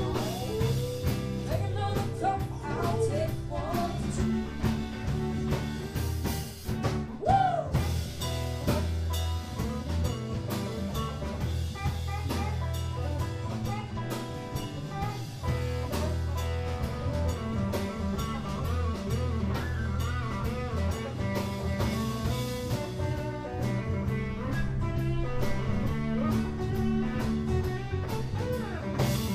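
Live band playing an instrumental passage: electric bass guitar, electric and acoustic guitars and a drum kit, with a guitar line of bending, gliding notes over a steady bass.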